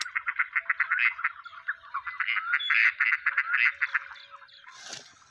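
Duck calls: a fast, even chatter of short notes, about eight a second, fading out about four and a half seconds in.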